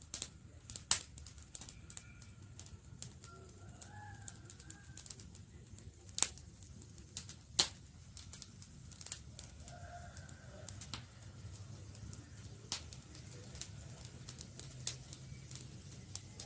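Wood fire crackling with irregular sharp snaps and pops, a few louder pops about one, six and seven and a half seconds in, over a low steady rumble of the flames.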